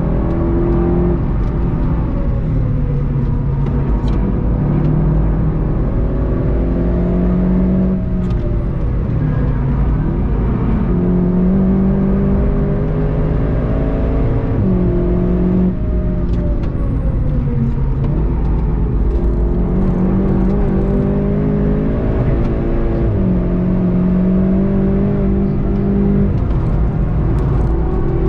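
VW Golf 7.5 GTI TCR's turbocharged 2.0-litre four-cylinder engine driven hard on track, its pitch climbing and dropping repeatedly through gear changes, braking and acceleration, over steady road and wind rumble.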